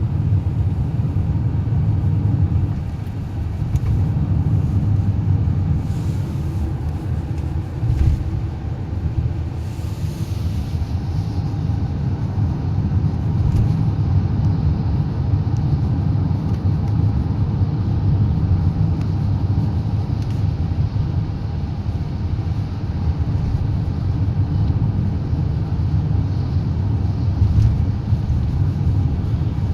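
A car driving in the rain, with a steady low rumble of engine and road noise.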